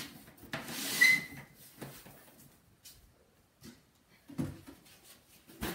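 Hand and paper towel rubbing across a CRT monitor's plastic case, with a short squeak about a second in, then scattered light knocks and clicks of handling and a sharper click near the end.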